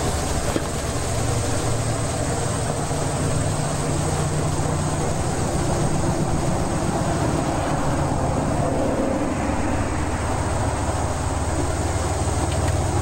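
Small Honda gas engine, salvaged from a cement mixer, running steadily as a starter. Through a gear reduction it turns over the flywheel of a Reid Type A two-stroke oil-field engine that has not yet fired.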